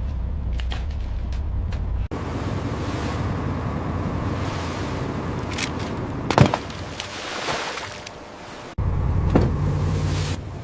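Crab fishing boat at sea: a steady low engine drone and the wash of water, heard across several abruptly cut shots, with a sharp knock about six seconds in.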